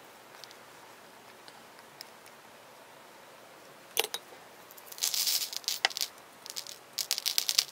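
Loose Prills micro beads pattering and rattling onto a paper plate as the excess is tipped off a glued sun shape. It comes in a few short spells of crackly patter, starting with a click about four seconds in.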